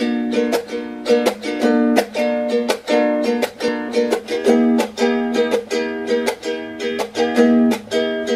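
Ukulele strumming a chord pattern in quick, even strokes, about three a second: the instrumental intro of a song before the vocals come in.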